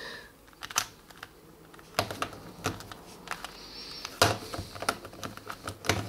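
Rubik's cube being turned by hand: its plastic layers click and clack in irregular bursts, with a couple of sharper clacks about two seconds in and just after four seconds.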